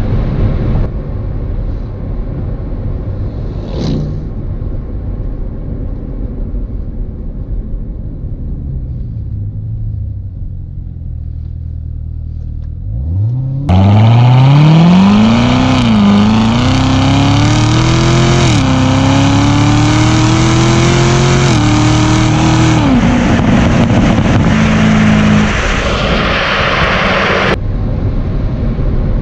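2019 Corvette ZR1's supercharged 6.2-litre V8 exhaust, at first a low steady rumble. About halfway in it revs hard under full acceleration, its pitch climbing and dropping back at three upshifts, before settling to a steadier drone near the end.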